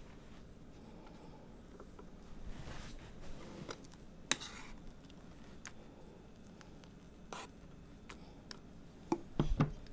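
Faint clinks and scrapes of a utensil in a stainless steel saucepan as frosting is scooped out onto a cake, with a single sharp click about four seconds in and a quick cluster of louder knocks near the end.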